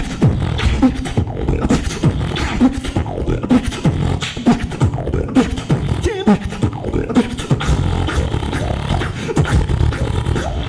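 Beatboxing: a dense rhythm of vocal percussive hits with many short downward-sliding bass notes.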